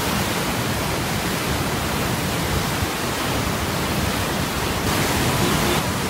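Floodwater rushing out below a dam's open gates, a steady wash of churning white water. The hiss turns brighter for about a second near the end.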